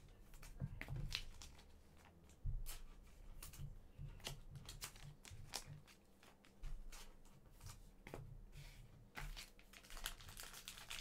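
Plastic trading-card pack wrapper crinkling and tearing as a Panini Mosaic soccer pack is handled and opened: an irregular run of small crackles and clicks.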